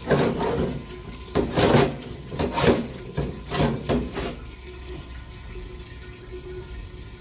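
Varsol solvent pouring from a parts-washer nozzle into the sink basin, splashing in uneven surges as a transmission drum is turned and rubbed by hand under the stream. After about four seconds it settles to a quieter, steady run.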